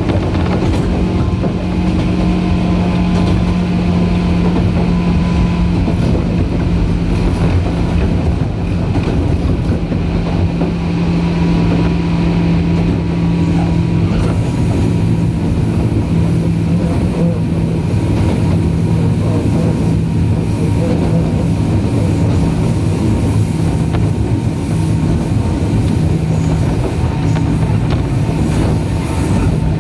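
Running noise inside a JR 103 series 1500-subseries electric train's motor car at steady speed: a constant traction-motor hum over the rumble of wheels on rail.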